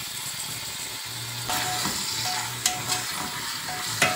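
Pork ribs, onion and garlic sizzling in lard in an aluminium pressure cooker. About a second and a half in, a spoon starts stirring them, with a few knocks against the side of the pot.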